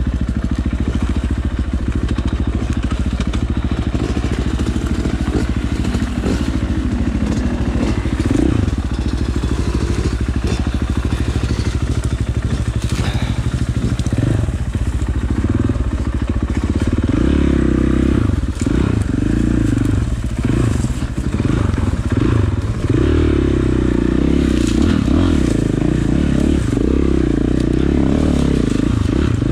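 A 2019 KTM 450 XC's single-cylinder four-stroke engine running under load on a dirt trail. It holds fairly steady for the first half, then the revs rise and fall repeatedly as the bike climbs through brush.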